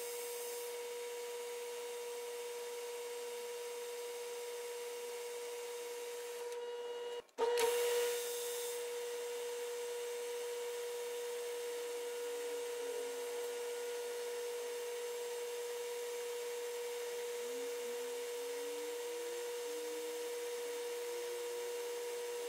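Metal lathe running with a steady mid-pitched hum and whine. It drops out briefly about seven seconds in and comes back slightly louder. In the second half, faint rising squeaks come as a drill is fed into the brass part.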